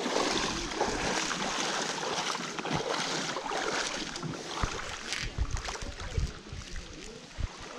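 River water swishing and splashing around wading legs in a shallow stream, a steady rushing noise. In the second half, low thumps of wind buffeting the microphone.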